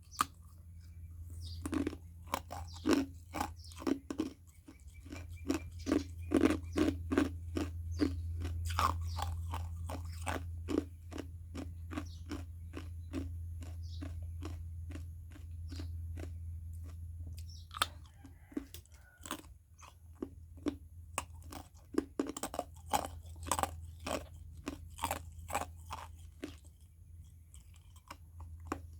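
Ice cubes being crunched and chewed in the mouth, sharp crunches coming about three a second, easing off for a few seconds past the middle before picking up again. A steady low hum runs underneath.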